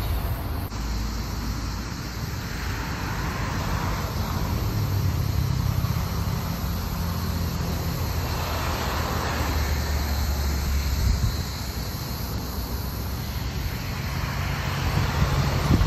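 Wind buffeting a phone's microphone outdoors: an uneven low rumble that swells and fades in gusts, with a sharper jolt near the end.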